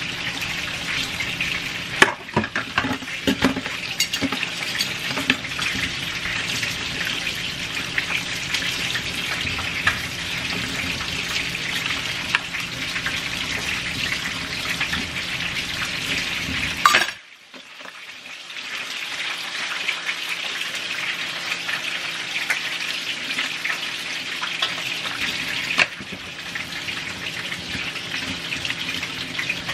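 Kitchen tap running onto dishes being hand-washed in a stainless steel sink: a steady hiss of splashing water, with a few clinks of plastic and metal utensils about two to five seconds in and a brief sudden dip about seventeen seconds in.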